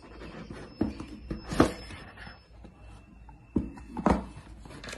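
Paperboard retail box being slid open and handled: a few short scrapes and taps against the table, the loudest about a second and a half in.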